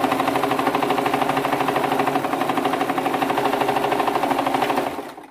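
Domestic sewing machine running at a steady speed, the needle stitching in a rapid, even rhythm through two layers of cotton fabric, stopping near the end.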